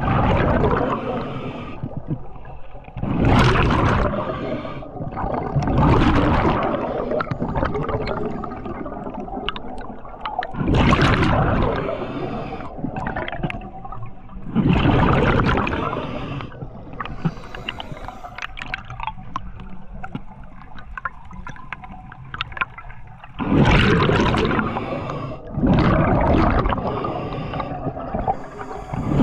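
Scuba regulator breathing underwater: bursts of exhaled bubbles rushing and gurgling about every three to four seconds, with a longer pause in the middle.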